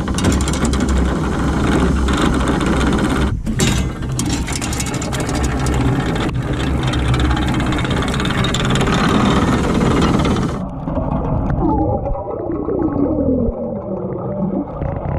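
Boat running under way on its Honda BF90D outboard, a loud steady engine rumble mixed with wind and water rush. This cuts off abruptly about ten seconds in, giving way to a quieter passage with gliding tones.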